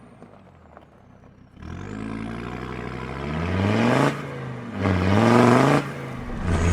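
Land Rover Defender Td5 five-cylinder turbodiesel, ECU remapped for more power, accelerating hard: after a quieter second and a half the revs climb steadily, drop sharply at a gear change about four seconds in, climb again and drop at another change near the end.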